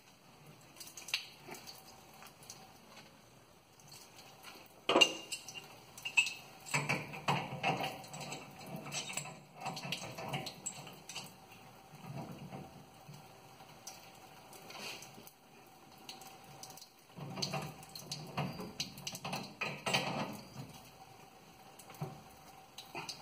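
Irregular metal clinks and knocks of a new laundry faucet being threaded onto a water pipe by hand and then gripped and turned with a pipe wrench, with one sharp clank about five seconds in.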